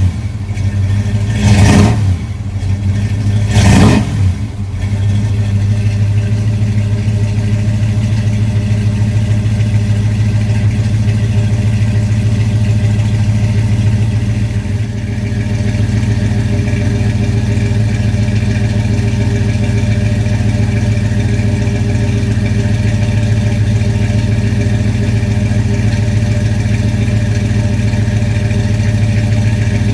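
Rebuilt 454 big-block V8 in a 1988 Chevy Suburban blipped twice in the first few seconds, then settling into a steady idle.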